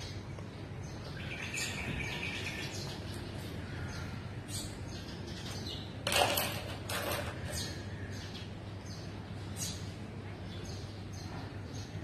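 Birds chirping in short, high calls scattered through, over a steady low hum, with one louder, sharper sound about six seconds in.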